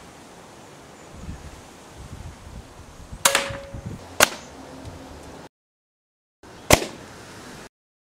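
A .177 Hatsan AT44-10 PCP air rifle firing: three sharp cracks, the first two about a second apart and the third a few seconds later, as pellets burst paintballs set on golf tees. The shots are broken up by two short gaps of dead silence.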